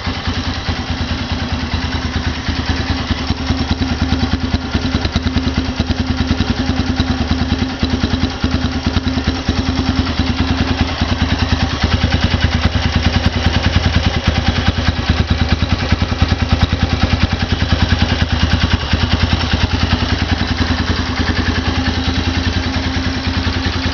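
Honda CG 150 Sport's single-cylinder four-stroke engine running at a steady idle through an 'estralador' aftermarket exhaust, with a rapid, even exhaust beat. It gets slightly louder about halfway through.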